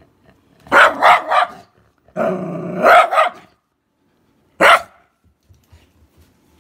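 Shiba Inu barking: three quick barks about a second in, a longer drawn-out bark a little later, then one more sharp bark.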